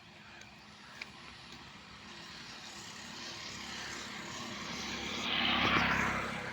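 A motor vehicle passing by, growing steadily louder and loudest about a second before the end, then starting to fade.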